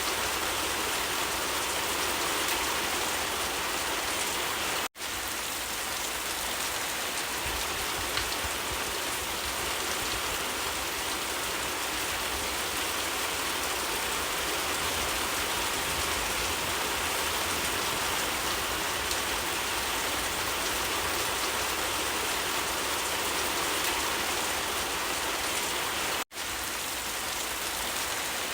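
Steady rain falling, an even hiss of rain on surfaces. It is broken twice by a split-second dropout to silence, about five seconds in and near the end.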